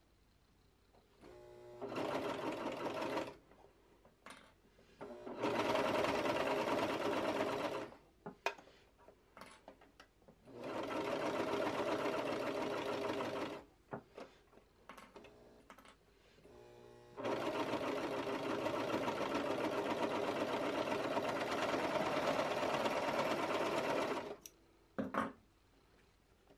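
Sewing machine stitching down knit binding in four runs: a short one, two of about three seconds, and a longer one of about seven seconds near the end. Short pauses with small clicks come between the runs.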